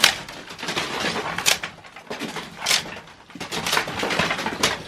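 Old wood being pried and torn loose by hand: about five sharp cracks and knocks with scraping and creaking between them.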